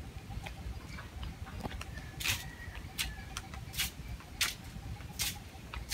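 Footsteps at an even walking pace, one about every 0.7 seconds from about two seconds in, over quiet outdoor ambience.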